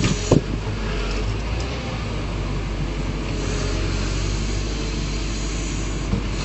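Backhoe loader's diesel engine running steadily, with two sharp knocks just at the start.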